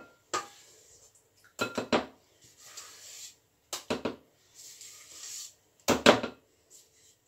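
A spatula scraping cream cheese frosting out of a stainless steel mixer bowl, with short clusters of sharp knocks against the bowls about every two seconds as the frosting is tapped off into a glass bowl, and softer scraping between them.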